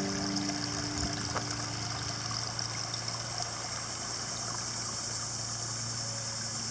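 Water trickling steadily in a small garden creek, with a low steady hum underneath.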